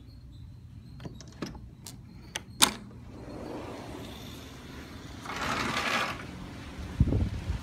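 A few sharp clicks and taps, then wind rushing over a phone microphone, with a louder gust about five seconds in and low buffeting thumps near the end.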